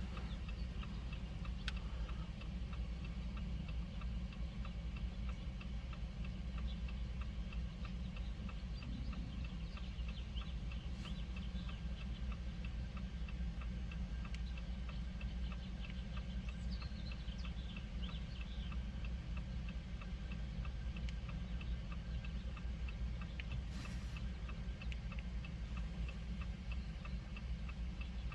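A 2019 Jeep Compass's hazard-light flasher ticking steadily and evenly, over a steady low hum.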